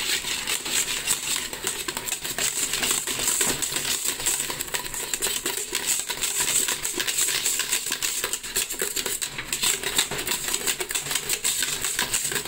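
Large wire balloon whisk beating soft mashed potatoes in a steel pot, its wires clicking and scraping rapidly and continuously against the pot's sides and bottom.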